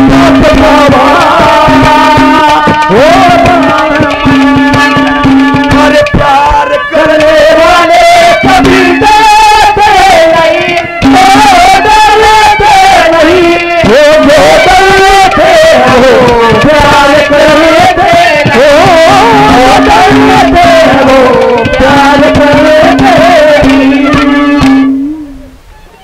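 Haryanvi ragni folk music: a wavering melody over a held drone note, with quick hand-drum beats throughout. The music stops about a second before the end.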